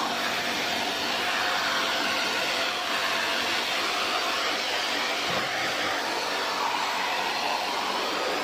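Pressure-washer water jet spraying steadily into the evaporator coil of a split-type aircon indoor unit, rinsing off the soaked-on soap and dirt: a continuous hiss of water on the fins.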